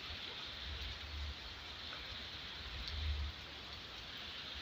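Steady rain falling on wet ground and puddles, an even hiss, with low rumbles coming and going underneath, the strongest about three seconds in.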